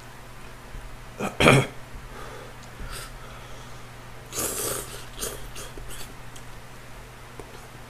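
Loud slurping of buckwheat soba noodles in curry broth. A short heavy slurp comes about a second and a half in, the loudest sound, and a hissing slurp follows about four and a half seconds in. A few light clicks come just after.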